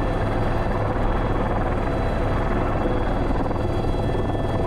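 Airbus H125 helicopter heard from the cockpit: the single turboshaft engine and the rotors running, a steady noise with several constant tones and no change in level.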